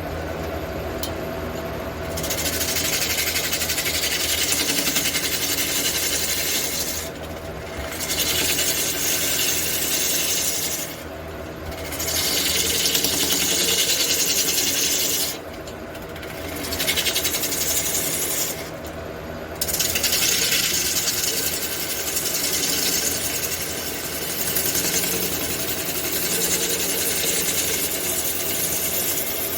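Wood lathe running steadily while a turning tool cuts into a large red cedar blank, a loud hiss of cutting over the motor hum. The cutting breaks off briefly several times between passes, then runs on without a break through the last third.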